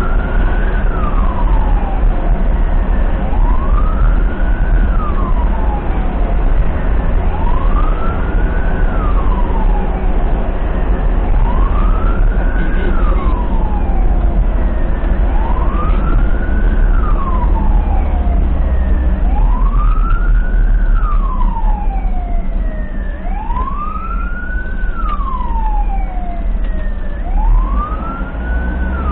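Ambulance siren sounding a slow wail, each cycle rising quickly in pitch and then falling away, repeating about every four seconds. The ambulance's engine and road rumble run steadily underneath.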